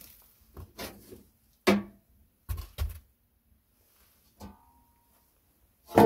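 Sheet-metal clanks and dull knocks as parts of a folding steel camp stove are handled and fitted together: a sharp clank that rings briefly, two dull thumps, a light clink, then the loudest ringing clank near the end.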